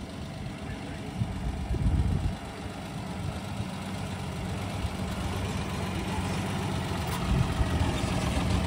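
Engine of an old military truck running at low speed as it creeps closer, a steady low drone growing gradually louder.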